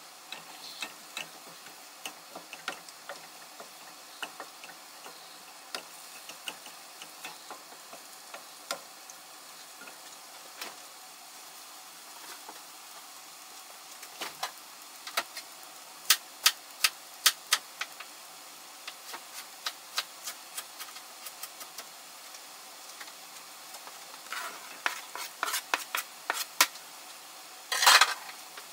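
Food sizzling in frying pans while a spatula stirs and knocks against the pans, giving irregular clicks and taps over the steady sizzle, with a louder clatter near the end.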